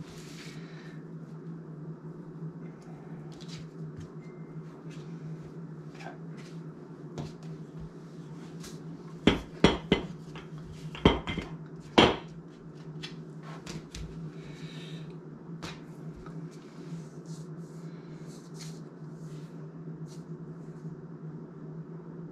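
Kitchen utensils handled on a countertop while biscuit dough is cut and rolled: light scattered clatter, then a quick run of five sharp knocks of a rolling pin or knife on the board and counter about nine to twelve seconds in, over a steady low hum.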